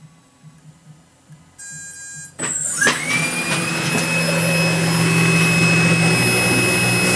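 Small CNC mill's spindle motor starting up about two and a half seconds in. Its whine rises quickly, settles at one high pitch and runs on steadily. A brief buzzy tone comes just before it starts.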